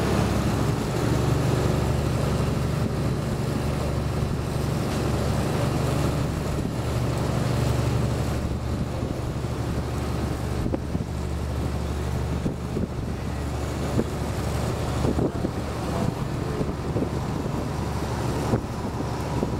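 River boat's engine running steadily, heard from on board, with wind buffeting the microphone in gusts that grow more frequent in the second half.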